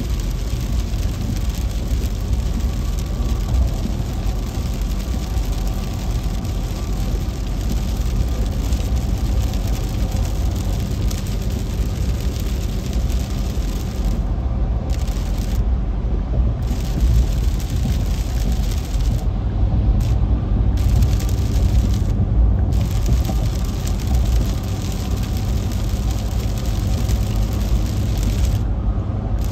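Steady heavy rain on a car's windshield and roof, mixed with tyre and road noise from a wet freeway, heard inside the cabin. The higher part of the hiss cuts out briefly several times in the second half.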